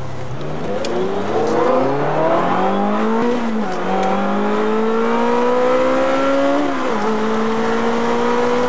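Car engine accelerating hard through the gears, heard from inside the cabin. The pitch climbs, drops at an upshift about three seconds in and again about seven seconds in, then climbs again.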